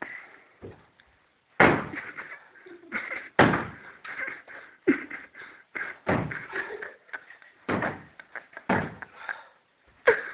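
A series of heavy bangs, like something hard being slammed or struck again and again: about six loud hits spaced one to two seconds apart, with softer knocks between them.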